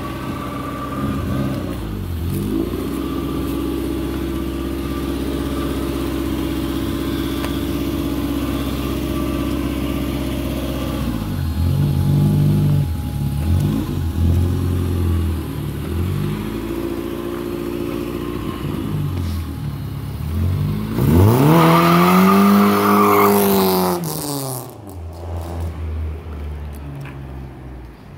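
BMW E30 318i's M10 four-cylinder engine idling, blipped a few times, then revved up and down about four times. About 21 seconds in it is revved hard for about three and a half seconds while one tyre squeals in a burnout attempt, then it drops back and the sound fades.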